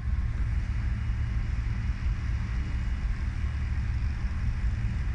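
Steady low rumble with an even hiss over it: outdoor background noise with no clear single source.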